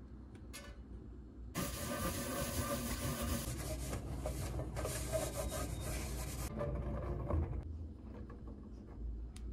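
Paper towel rubbing oil around the inside of a metal springform cake pan: a dense, scratchy rubbing that starts about a second and a half in and lasts about five seconds, greasing the pan for baking.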